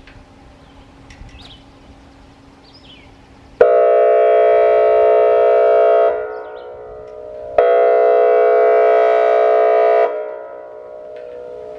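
Whelen WPS-2802 electronic outdoor warning siren sounding two long, steady horn-like blasts, each about two and a half seconds, starting and stopping abruptly, with the sound echoing back and fading after each one.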